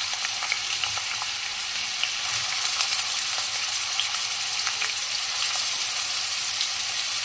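Finely chopped onion sizzling in hot oil in a kadhai: a steady hiss with scattered small crackles.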